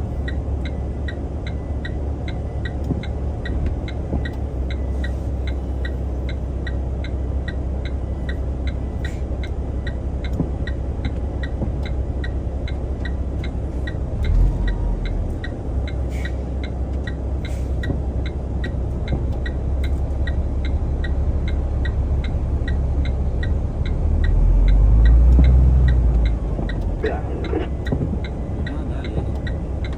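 Dongfeng truck's diesel engine running at idle, heard from inside the cab as a steady low rumble, with a regular faint tick about twice a second. About 24 seconds in, the engine briefly rises and falls back.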